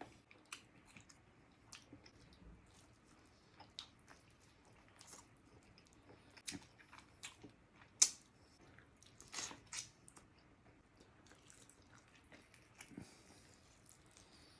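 A person chewing fried chicken and mashed potatoes, with scattered wet mouth clicks and smacks. The loudest smack comes about eight seconds in.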